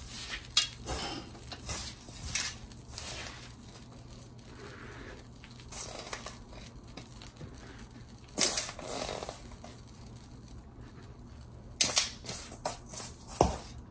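Damp puttu flour being scooped by hand from a steel bowl and dropped into a cloth-lined steamer: irregular crumbling and rustling, with a few louder knocks and one low thump near the end.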